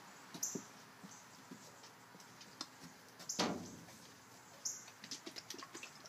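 Faint, short high squeaks and chirps from small monkeys, one louder call about halfway through sliding down in pitch, among light clicks and taps.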